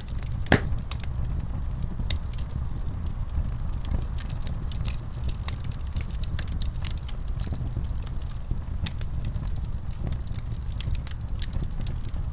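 Wood fire in a fireplace crackling, with many small sharp pops over a steady low rumble of the flames. One louder pop comes about half a second in.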